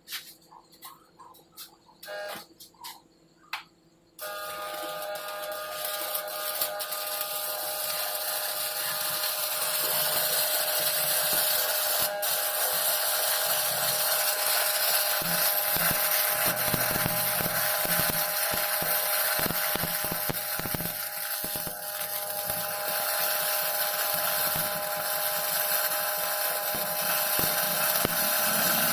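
Shielded metal arc welding on a carbon steel pipe root pass with an E6011 electrode: a few light clicks, then about four seconds in the arc strikes and crackles steadily.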